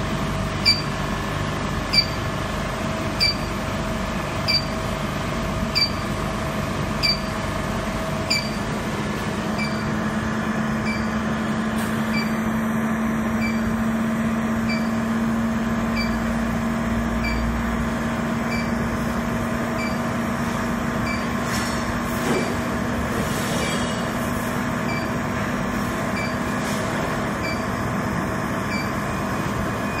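Vacuum induction melting furnace equipment running while melting, its vacuum pumps and induction power supply giving a steady machine hum with several held tones. A short high chirp repeats about every 1.3 seconds, and the low hum grows stronger about ten seconds in.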